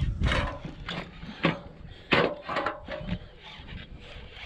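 Baitcasting reel being cranked in while fighting a large bass, with several short, loud rushes of noise in the first three seconds.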